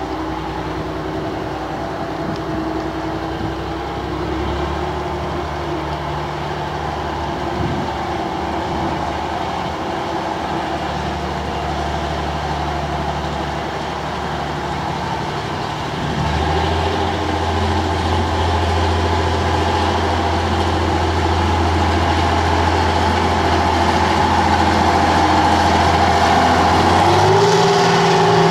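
Diesel-electric rail motor's engine running as the railcar pulls slowly along the platform. The engine note steps up twice and grows louder as the railcar comes close.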